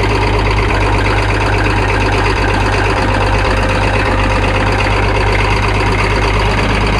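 International Harvester 656 tractor's diesel engine running steadily at a slightly raised idle, warming up after a cold start.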